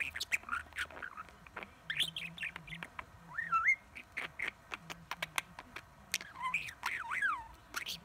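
Male budgerigar chattering: a stream of quick clicks mixed with warbling whistled chirps that rise and fall in pitch.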